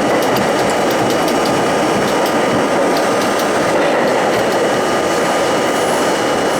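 Budd-built R32 subway car running at speed: a steady roar of wheels on rail, with rapid scattered clicks and faint high squealing tones over it.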